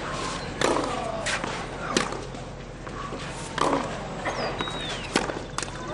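Tennis ball impacts on a clay court: a handful of sharp single knocks, a second or more apart, from the ball bouncing and being struck, over steady crowd noise. A brief falling whistle comes a little past the middle.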